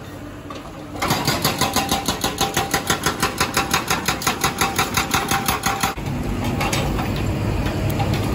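Hydraulic breaker on a Komatsu PC200 excavator hammering concrete road slab: rapid, even blows at about five a second with a metallic ring, starting about a second in and stopping after about five seconds. A steady low engine rumble follows.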